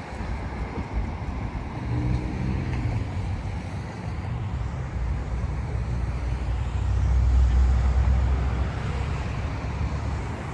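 Road traffic noise: a continuous low rumble of passing vehicles, swelling louder about seven seconds in before easing off.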